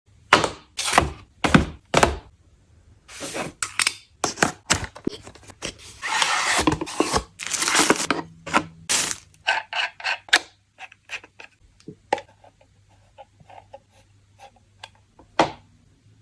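Handling of a phone screen protector and its packaging: a string of sharp knocks and clicks, a longer scraping, rustling stretch about six to eight seconds in, then lighter, quicker taps and ticks.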